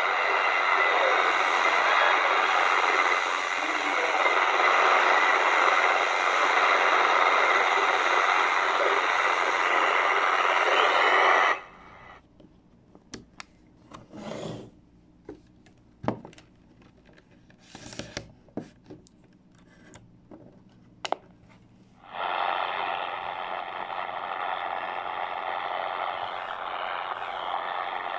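The Chinese Firedrake shortwave jammer on 9970 kHz, harsh distorted jamming audio, plays through the speaker of a Tecsun R-909 and cuts off suddenly about 11 seconds in. Clicks and rubbing follow as the radios are handled. About 22 seconds in, the same jamming signal comes in through an XHDATA D-219, sounding duller with the high treble missing.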